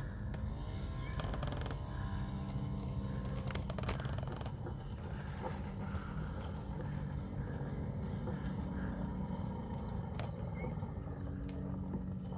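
Small moped engine running, with a rise in pitch about a second in.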